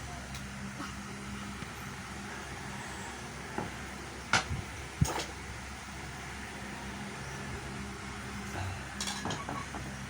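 A few sharp small clicks and clinks from handling tools and plug parts: three between about three and a half and five seconds in, and a quicker group near the end, over a steady low hum.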